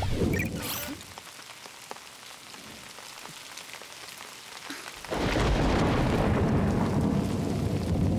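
Steady rain falling. About five seconds in, a loud, deep rumble of thunder breaks in and rolls on.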